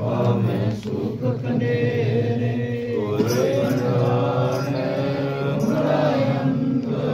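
A Sikh prayer chanted without a break by a group of voices, led by a man on a microphone, with long held notes that glide slowly.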